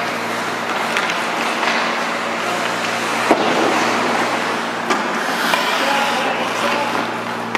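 Ice hockey play on a rink: skates scraping the ice, with a few sharp clacks of sticks and puck, over a steady low hum.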